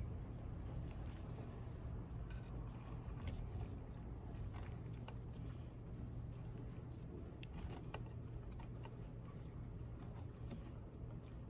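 Faint handling noise of fingers twisting copper wire strands and pushing them into a bench grinder's metal terminal box: scattered small clicks and rustles over a steady low hum.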